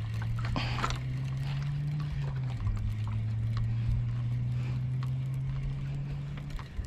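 A steady low engine hum, its pitch dropping a little about two seconds in and cutting off near the end, with scattered light clicks over it.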